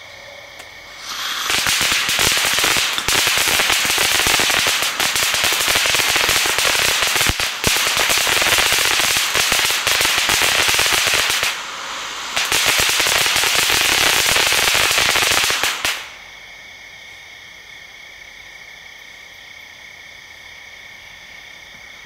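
Consumer firework fountain (a Pyro Blends coffee-cup fountain) spraying sparks with a dense, loud crackle that starts about a second in, dips briefly two-thirds of the way through, then stops abruptly. Around it, night insects keep up a steady high trilling.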